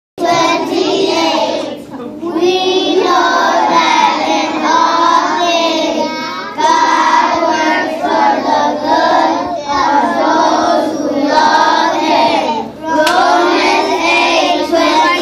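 A class of kindergarten children reciting a scripture passage together in unison, in a sing-song chant, phrase by phrase with short breaks between phrases.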